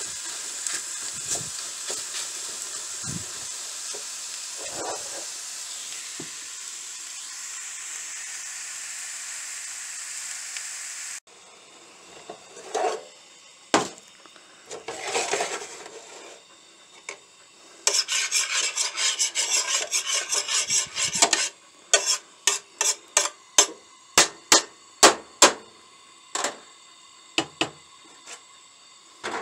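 Diced onion, peppers and tomato sizzling in a stainless steel frying pan as they brown, with a spoon moving through them now and then. After an abrupt change about a third of the way in, the sizzle is gone and a spoon scrapes and stirs in the pan: a few separate strokes, a quick run of scraping for a few seconds, then a string of short taps.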